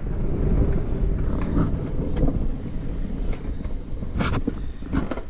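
Low rumbling handling noise from a handheld camera being moved around, with a couple of short knocks near the end.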